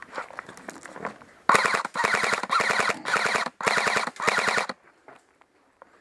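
Airsoft gun firing on full auto in several rapid bursts, starting about a second and a half in and stopping a little over a second before the end.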